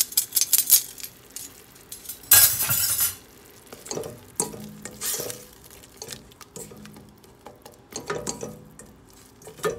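Silicone spatula stirring and scraping sautéed onion in a stainless steel pot, in irregular strokes with a light sizzle underneath. The loudest scrape comes about two and a half seconds in and lasts under a second.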